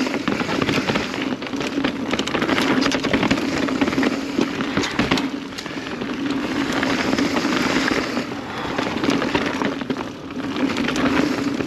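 Kona Process X mountain bike ridden downhill on a rough, snowy trail: steady tyre noise with constant clicking and rattling from the chain and frame over bumps, and a steady buzz that fades and returns several times.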